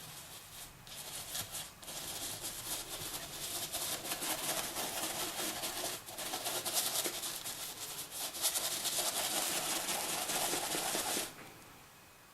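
Paintbrush bristles scrubbing rapidly in circles on canvas as clouds are painted in: a dense scratchy rasp with brief pauses, cutting off sharply about eleven seconds in.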